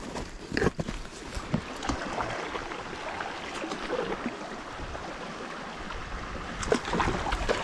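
Water running and gurgling past a kayak as it is paddled up a stream, with a couple of knocks in the first second or so and louder paddle splashes near the end.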